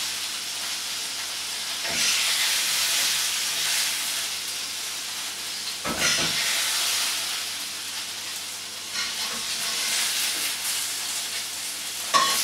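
Hot oil sizzling in a wok while a ladle scoops fried salmon pieces out. The sizzle swells about two and six seconds in, as the ladle knocks against the wok, and there is a sharper clink near the end.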